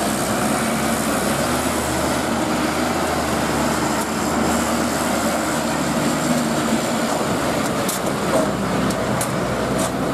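Heavy diesel cargo trucks running steadily at low speed close by, a continuous low engine hum over general traffic noise, with a few short clicks near the end.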